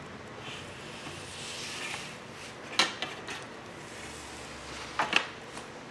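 Plastic lens cover and foam board panel sliding along the channel of a metal poster frame: a faint rubbing scrape, with a sharp click about three seconds in and a couple more clicks near the end.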